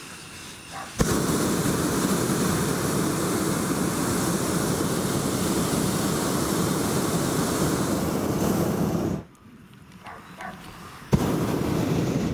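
Hot air balloon's propane burner firing: a long blast of about eight seconds, then a second blast about two seconds later. Each starts abruptly with a click.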